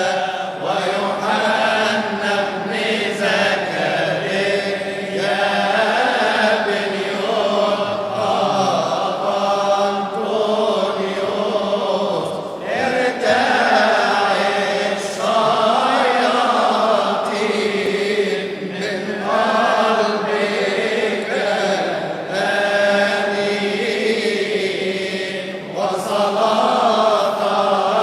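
A man's voice chanting an Arabic Coptic madih, a praise hymn to Saint Anthony, in long melodic phrases with held notes and short breaks between lines.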